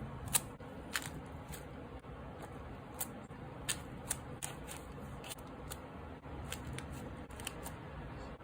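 Scissors snipping paper: a dozen or so short, sharp snips at uneven intervals.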